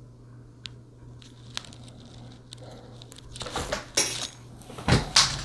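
Handling noise from a clip-on phone camera lens being fitted onto a phone: a few small clicks, then, about three and a half seconds in, a spell of clattering with several sharp plastic-and-glass clicks as the clip is forced onto the phone's thick case.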